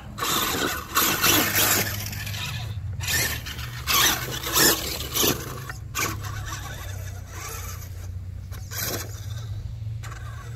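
Large-scale RC monster truck (Perses chassis) driving on front-wheel drive only, its rear drive shaft split. Its motor and tyres scrabble and scrape over the ground in repeated bursts over a steady low hum.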